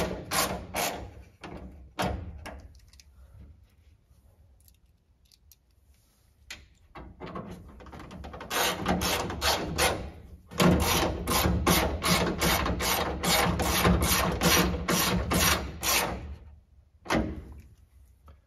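Small hand ratchet clicking in quick, even runs of strokes as it snugs down the hex-head screws that hold the instrument cluster to the dash, with a single knock about two seconds in and another near the end.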